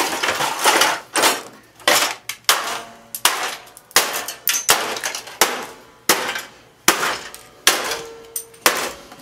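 An old multi-speed electric fan being battered with repeated heavy blows, each a hard metallic clang with a short ring, about a dozen in a row at roughly one every two-thirds of a second. The fan is holding up, built like a tank.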